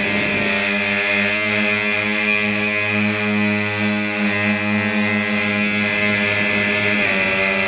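Drone's electric motors and propellers droning steadily, heard from the camera mounted on the drone, the pitch shifting slightly a few times.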